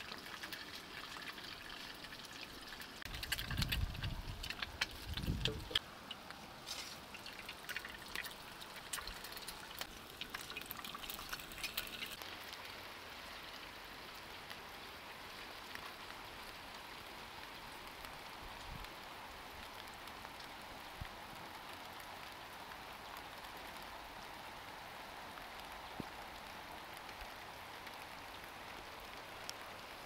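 Steady rain falling. Many sharp crackling clicks and a few dull thumps come in the first dozen seconds, then only the even patter of rain.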